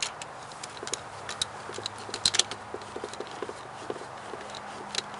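Irregular light clicks and taps of a cone air filter's rubber coupler and plastic being worked onto the intake tube by hand, over a faint steady hum.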